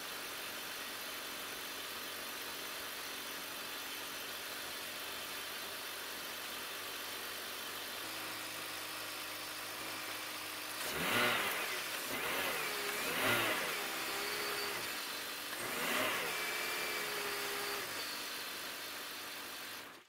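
2001 BMW 520i's 2.2-litre straight-six petrol engine idling steadily, then revved in four quick blips about halfway through, each rising and falling back to idle. It cuts off suddenly at the end.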